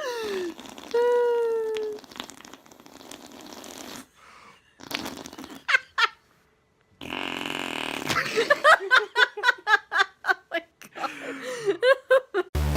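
Fart noises blown with the mouth against a person's bare arm: two buzzing toots, the first falling in pitch and the second held for about a second. Laughter follows in a long run of quick bursts.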